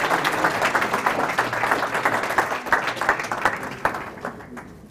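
Audience applauding, the clapping thinning out and dying away over the last second or so.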